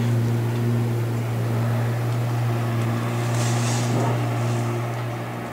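A steady, low engine drone that eases off near the end.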